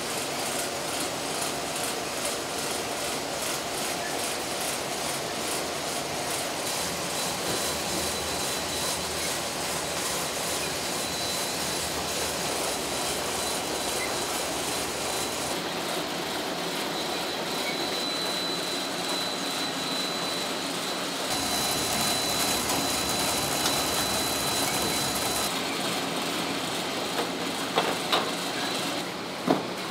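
Oil filter production machinery running: a steady mechanical din with a thin high whine, its mix changing abruptly a few times, and a few sharp clicks near the end.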